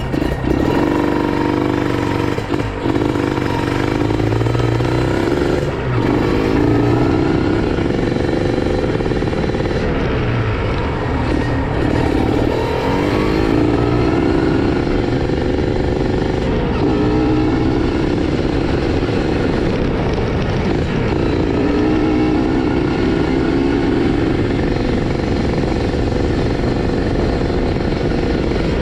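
Kawasaki Ninja 150 RR two-stroke single-cylinder engine running at idle to warm up, steady with small rises and falls in pitch.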